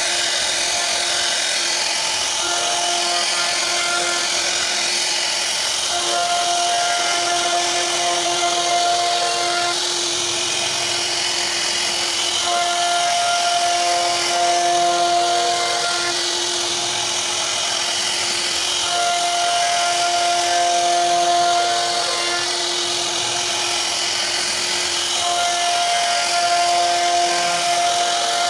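CNC router spindle running with its bit carving a relief pattern into a wooden door panel: a steady high whine and cutting noise, with a lower tone that comes in and drops out every few seconds as the machine moves.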